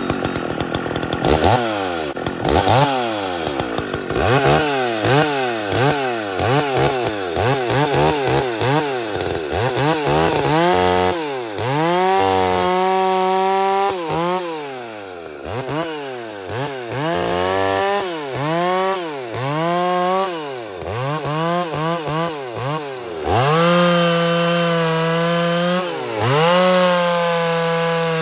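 Jonsered 630 two-stroke chainsaw revving over and over, its pitch rising and falling about once a second, then held at high revs in longer stretches near the end as it cuts into a log.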